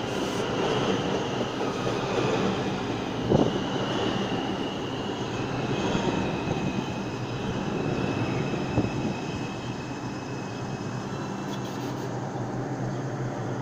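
New York City subway train pulling into a station and slowing to a stop: rolling rumble of the cars with a high motor whine that falls in pitch as it brakes, and two brief clunks. It gets quieter over the last few seconds as the train comes to rest.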